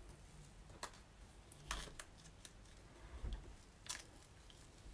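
Faint crinkles and a few scattered ticks of adhesive vinyl being picked and peeled off its backing sheet with a weeding hook.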